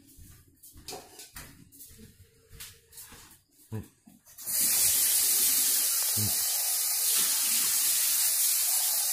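Kitchen faucet running cold water into a glass measuring cup in a stainless steel sink, a steady hiss that starts about halfway through. Before it, a few light knocks and handling clatters.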